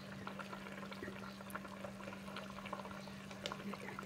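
Tomato-and-fish broth simmering in a large pot, bubbling with many small irregular pops, over a steady low hum.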